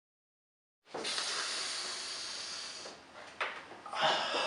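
A steady hiss that starts suddenly and lasts about two seconds before fading, followed by a sharp click and a brief rustling noise near the end.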